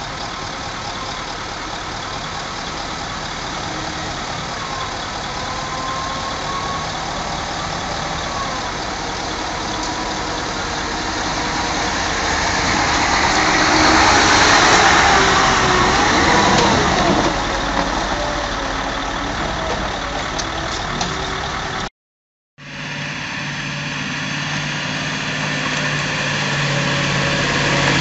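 Heavy diesel timber trucks' engines running as they drive along a dirt forest track. The first grows louder as it comes close and passes, then the sound cuts out for a moment near the end and a second truck's engine comes in, with a steady low hum, also growing louder.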